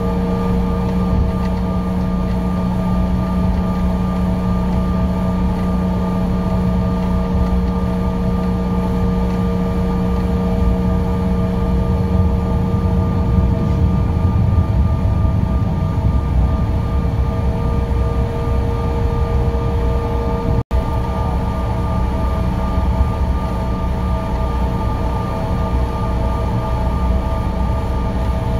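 Bombardier CRJ700 jet engines heard from inside the cabin: a steady hum with several held tones over a deep rumble, the rumble heaviest about halfway through. The sound cuts out for an instant about twenty seconds in.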